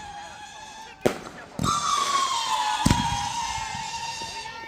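Consumer fireworks going off: sharp bangs about a second in, again shortly after, and near three seconds. After the second bang comes a long high whistle-like tone that slowly drops in pitch.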